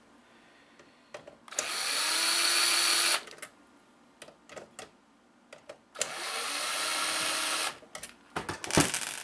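Cordless drill-driver backing out Torx screws: two runs of the motor of about a second and a half each, the first rising in pitch as it spins up. A few sharp clicks follow near the end. The drill's battery is running low.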